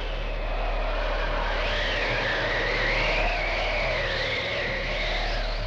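Synthesized cartoon sound effect: a steady low rumble under a wavering, howling electronic tone that rises and falls in pitch, as of being swept through a vortex.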